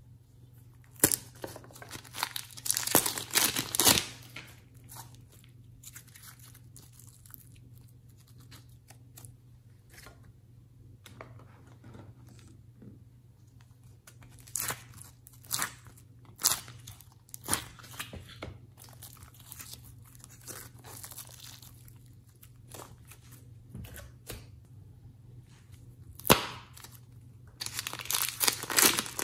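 Crinkling and tearing of plastic packaging as slime and clay containers are handled and opened: a crackly stretch about a second in, scattered sharp clicks and taps in the middle, and another crinkly stretch near the end as clear plastic wrap is pulled off a ball of yellow clay.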